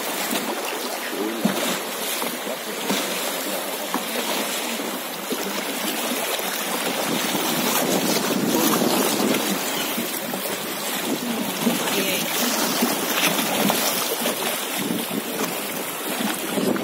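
Fast mountain river water rushing and splashing over shallow rapids around a wooden raft, a steady even rush.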